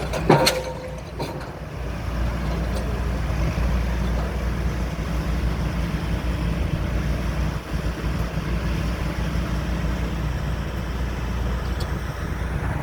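A pile-driving rig's engine running steadily with a low hum. About half a second in there is one sharp metallic clang with a short ring.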